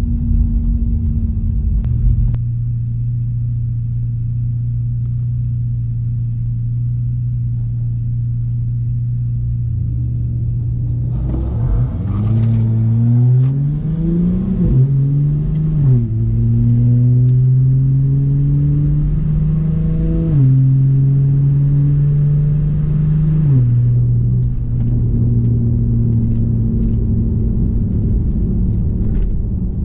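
The Dodge Charger's 3.6-litre Pentastar V6 runs at a steady drone, then accelerates hard about eleven seconds in. Its pitch climbs and drops back at each upshift of the eight-speed automatic, about four shifts in all, before settling back to a steady drone.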